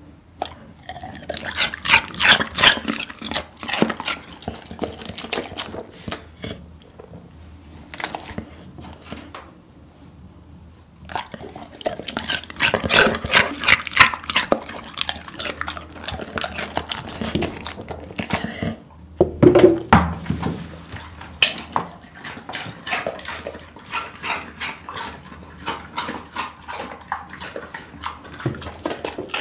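Golden retriever crunching and chewing pieces of raw cucumber: runs of crisp, rapid crunches a few seconds long, separated by short pauses.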